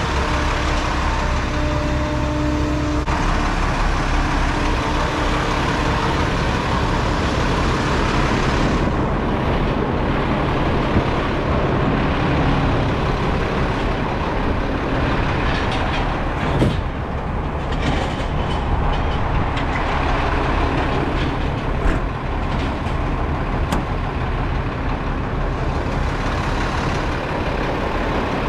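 Diesel truck engine idling steadily, with a few sharp knocks or clicks later on.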